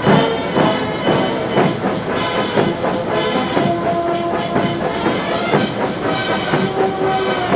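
Military brass band playing a march, with held brass notes, over the rattle and engine noise of tracked armoured vehicles rolling past on the paving stones.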